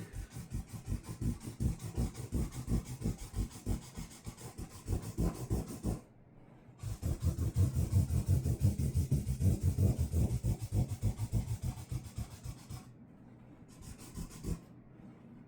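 Rapid back-and-forth scribbling strokes on the package, in two long runs with a short break about six seconds in, stopping a couple of seconds before the end.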